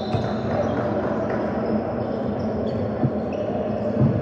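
Basketball bouncing on a hardwood gym floor during a game, a few separate thuds with the loudest near the end, over the steady hubbub of players and spectators in the gym.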